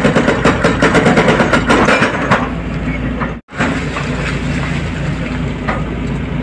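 Hydraulic excavator's diesel engine running at a building demolition, with rapid clattering knocks for the first two seconds or so. After a momentary gap a little over three seconds in, the engine runs on more steadily.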